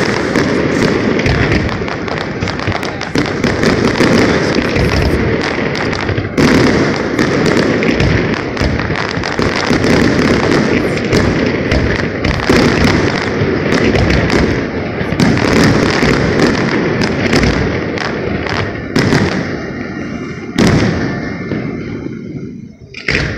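Fireworks display going off in a dense, continuous barrage of bangs and crackling, thinning out over the last few seconds with one last sharp bang.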